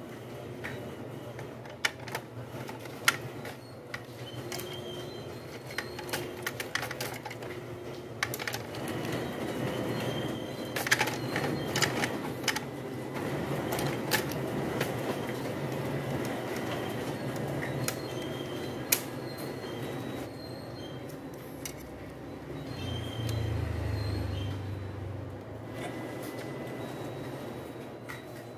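Plastic and metal parts of an HP OfficeJet Enterprise Color X585 printer clicking and knocking as they are handled and fitted by hand, scattered irregular taps over a steady low rumble, with a heavier low thrum about 23 seconds in.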